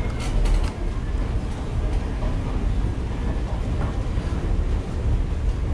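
Steady low rumble of an underground metro station passageway, with a few sharp clicks about half a second in.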